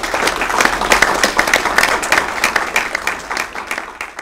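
Audience applauding with dense, steady clapping that fades out near the end.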